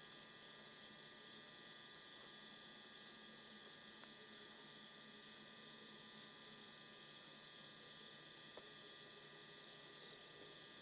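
Faint steady hiss with a high whine and a low hum, and no distinct event: the background noise of an old analogue video recording.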